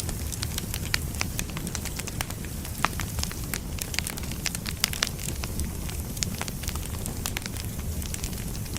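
Wood fire burning: a steady low rumble of flame with frequent irregular crackles and pops from the burning logs, a few sharper ones standing out.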